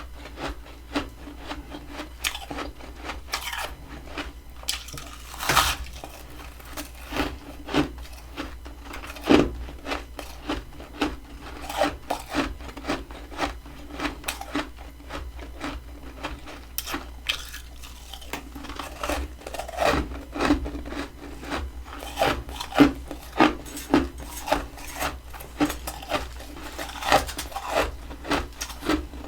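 Dense freezer frost crunching in many short, sharp crunches, about one or two a second, with some much louder ones among them.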